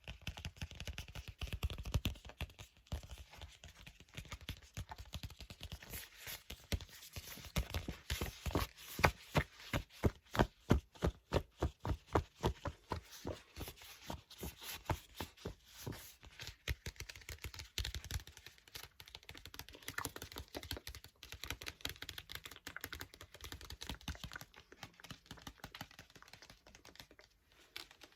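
Paper book pages being turned and flipped: a continuous run of crisp paper flaps and taps, which becomes a quick, even series of louder flaps, about four a second, a third of the way through.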